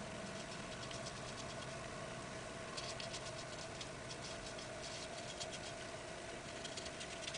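Faint scratchy strokes of a small paintbrush dabbing metallic acrylic paint onto paper, coming in quick clusters from about three seconds in, over a steady faint hum.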